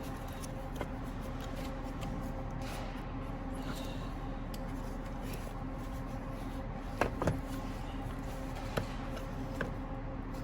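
A few sharp clicks and knocks of plastic blower-motor housing parts being handled and pulled apart on a bench, two close together about seven seconds in and single ones near the end, over a steady mechanical hum.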